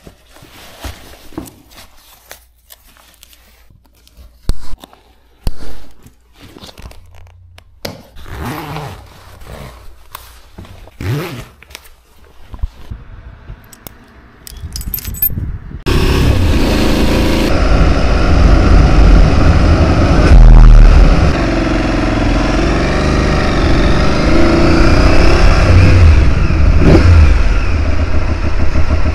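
Clicks, scrapes and rustling from motorcycle boot buckles and riding gear being fastened. About halfway through, the engine of an Aprilia Tuareg 660, a parallel twin, comes in abruptly and runs loud, its pitch rising and falling as the bike rides off.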